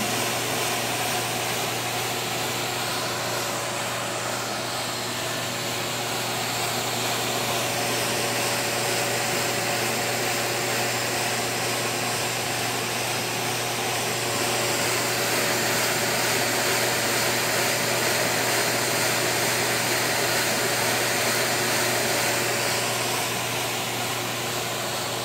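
Homemade wooden compressed-air engine running, with a steady rushing hiss of air through its hoses and cylinders and the whir of its wooden gears and spinning flywheel.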